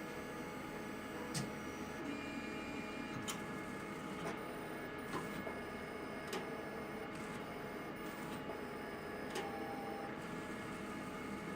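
XR-640 unit clicking sharply at irregular intervals, roughly once a second, over a steady running hum: the fault noise that has come back after a repair.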